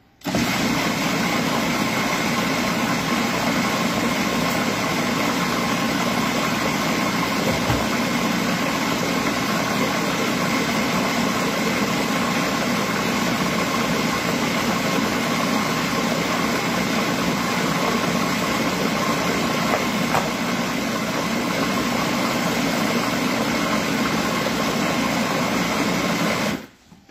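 Food processor motor running steadily, blending a creamy cashew cheesecake filling: a constant whirring hum that switches on at once and cuts off abruptly shortly before the end.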